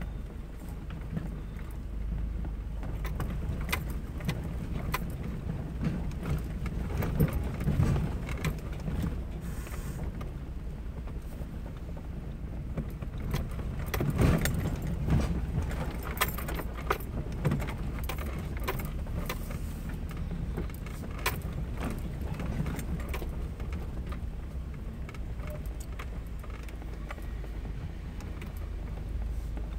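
Heard from inside a vehicle driving slowly over a rough dirt trail: a steady low rumble from the engine and tyres, with frequent clinks, rattles and knocks as it jolts over ruts. The biggest bumps come about seven and fourteen seconds in.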